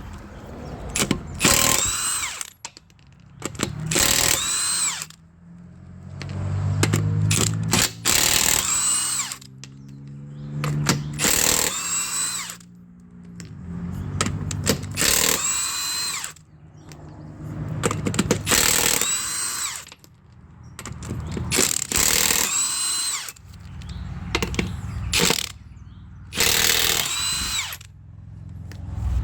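A 1/2-inch power impact wrench is run in about ten short bursts, each whining up and winding down, as it undoes the wheel or hub fasteners.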